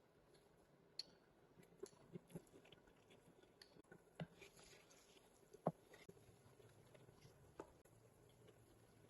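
Near silence with faint, scattered clicks and taps, roughly one every second or two, the sharpest about four and six seconds in.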